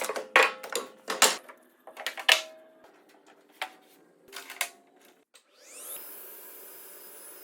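Pieces of wood knocking and clattering as they are handled, a few hits ringing briefly. About five and a half seconds in, a machine motor spins up with a rising whine and settles into a steady run.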